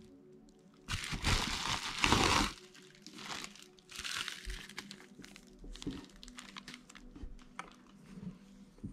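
Packaging crinkling as a camera lens is unwrapped by hand. A loud rustle lasting about a second and a half comes near the start, then softer rustling and small handling clicks.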